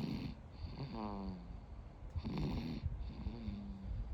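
Snoring in sleep: a rough snort on each in-breath, then a short humming moan on the out-breath, about two full breaths.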